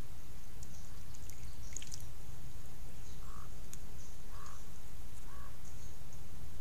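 Outdoor pond ambience under a steady low rumble. A small animal gives three short calls about a second apart, with faint high chirps and clicks earlier on.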